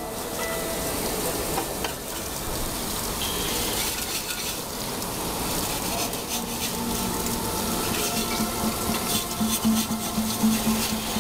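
Brake parts washer running, its cleaning fluid splashing and hissing in a steady wash.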